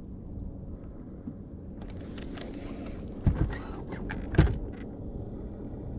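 A low steady rumble, joined about two seconds in by a stretch of rattling and clicking, with two sharp knocks about a second apart in the middle.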